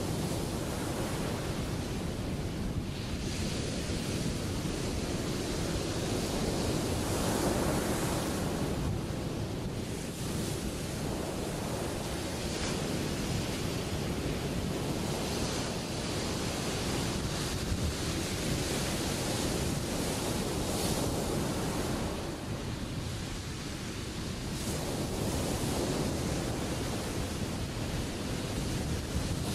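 Ocean surf breaking: a continuous rush of white water that swells and eases every several seconds.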